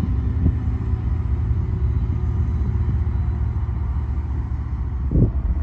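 Steady low rumble of a BNSF freight train's diesel locomotives, with a short thump near the end.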